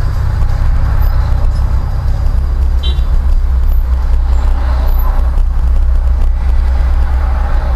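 Low steady engine and road rumble inside a car, as picked up by a dashcam, with a short high beep about three seconds in.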